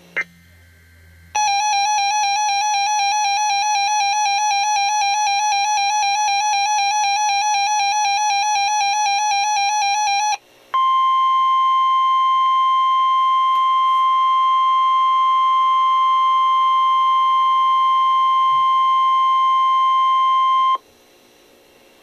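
Emergency alert tones on a weather radio. After a short blip comes about nine seconds of a warbling, buzzy two-tone attention signal. After a brief break, the single steady NOAA Weather Radio warning alarm tone sounds for about ten seconds. Together they signal that a new warning message is about to be broadcast.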